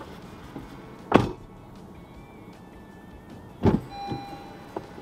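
Car door thudding shut about a second in, then another loud door thud with a smaller knock after it about two and a half seconds later as the driver's door is opened again.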